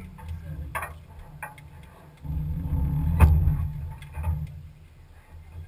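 Pinzgauer off-road vehicle running along a rough trail, a low engine and drivetrain rumble with scattered rattling clicks from the body, heard from the open rear bed. The rumble swells louder from about two to four seconds in, with one sharp knock near the middle of that stretch.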